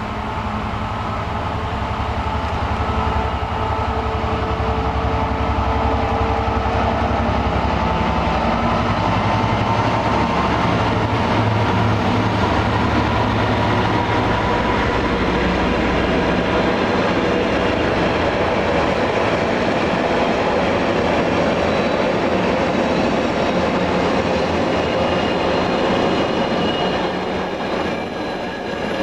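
An intermodal container freight train passes. The locomotive's low drone is strongest in the first ten seconds or so, then a long run of container wagons rolls by with steady wheel and rail noise.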